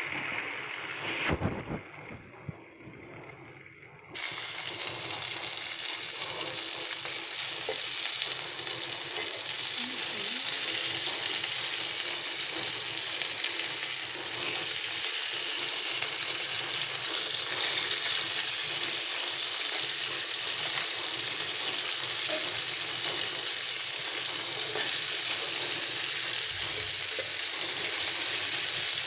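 Small trey riel fish sizzling in hot oil in a frying pan, a steady hiss that drops quieter for a couple of seconds near the start. A metal spatula now and then scrapes and taps the pan as the fish are turned.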